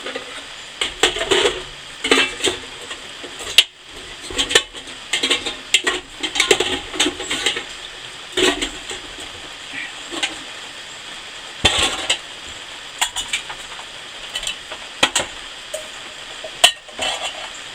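Camping cookware (pots, lids, plates and bowls) clinking and clattering as it is handled and gathered up, in an irregular run of knocks with a few louder clanks.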